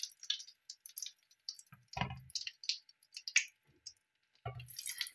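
A ladle scooping hot oil out of an enamelled steel pan: small clicks of the ladle against the pan and oil dripping, with duller knocks about two seconds in and again near the end.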